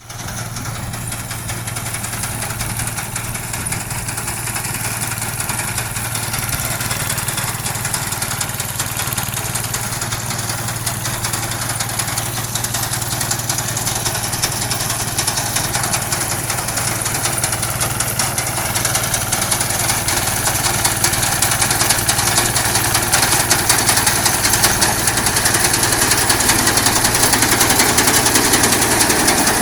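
Inari 7.0F rice combine harvester running steadily under a constant low engine hum, with the noisy whir and rattle of its machinery. It grows gradually louder through the second half.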